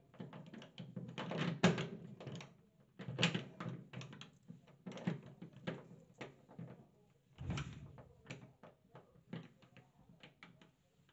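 Telescopic basin wrench clicking and knocking against a chrome washing-machine tap as it is fitted and worked: an irregular run of small metal clicks with a few louder clunks among them.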